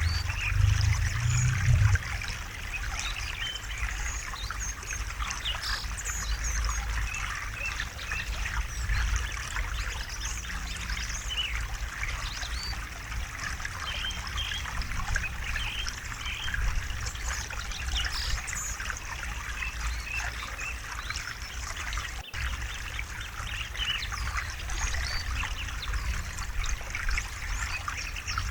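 River water trickling and babbling over stones, with a steady low rumble of the current beneath, strongest in the first couple of seconds.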